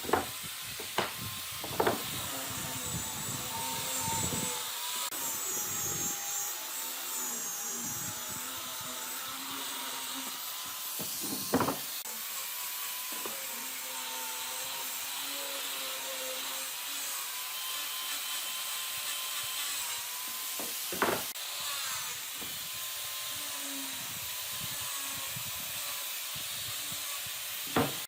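Wood being worked with a tool: a steady rasping hiss over a faint wavering hum, broken by a handful of sharp knocks spread through.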